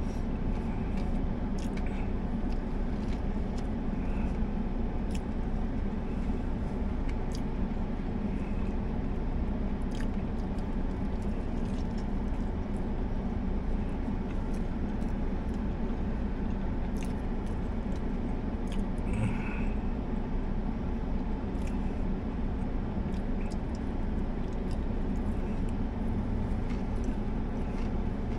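Steady low hum inside a parked car's cabin, with quiet chewing and a few small clicks as a man eats a fried chicken sandwich.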